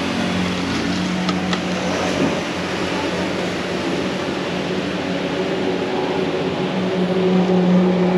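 A motor running with a steady low hum, a little louder near the end.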